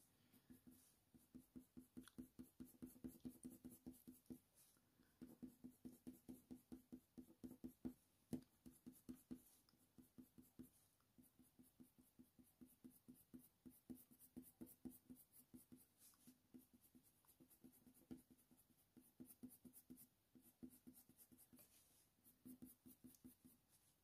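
Faint scratching of a Faber-Castell Polychromos coloured pencil on hot-press watercolour paper. It makes short quick strokes, about four a second, in runs of a few seconds with pauses between, as small feather details are mapped in.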